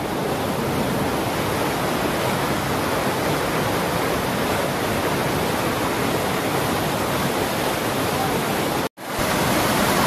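Waterfall in heavy flow, water pouring over rock in a loud, steady rush. It cuts out for an instant about nine seconds in, then resumes.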